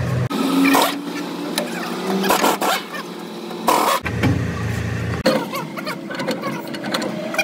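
Metal clanks and scraping as a heavy truck differential carrier is worked by hand into its rear axle housing, with the sharpest knocks less than a second in and again just before the four-second mark. A steady low hum cuts out early, comes back about four seconds in and stops again a second later.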